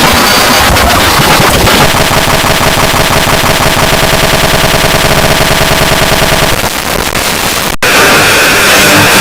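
Heavily distorted, clipped sound-effect mash-up: a loud rapid rattling noise. It thins out briefly about seven seconds in and drops out for an instant before coming back.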